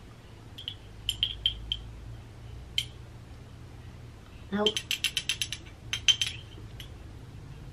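Plastic spoon clicking and scraping against a glass baby-food jar while scooping. A few scattered clicks come first, then a quick run of clicks about halfway through and a few more just after.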